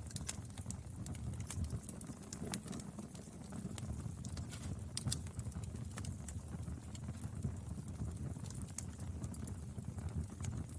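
Wood fire burning: a low rumble of flames with irregular sharp crackles and pops.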